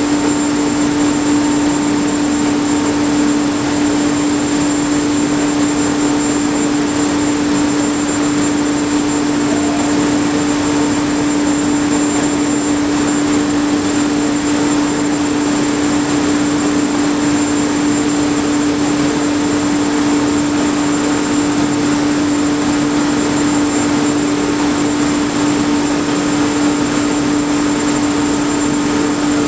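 Heavy construction machinery running steadily: a constant hum with a fainter high tone over an even rushing noise.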